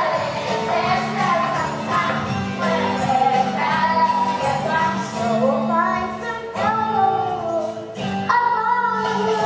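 Children singing a song together over instrumental accompaniment.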